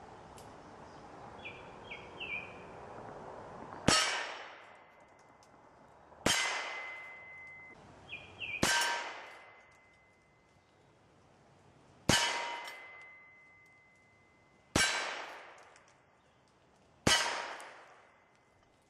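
Six revolver shots, a few seconds apart, each followed by the ringing clang of a steel target being hit.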